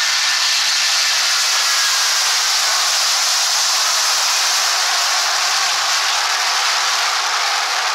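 Steady, loud rushing hiss of a jet airliner's engines at takeoff power, with no change in level.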